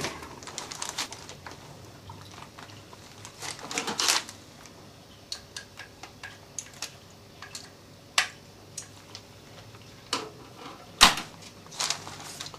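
Scattered metal clicks and clunks of hand work at a stopped lathe: the tool turret being moved and the machined crankcase casting being taken out of the chuck, with a sharper knock near the end.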